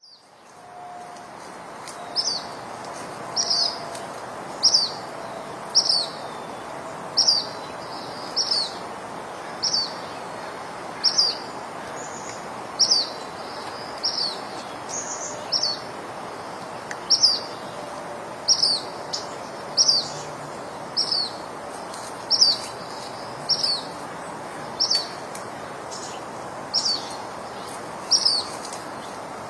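A songbird repeating one short, high, downslurred call about once a second, over a steady hiss of woodland ambience.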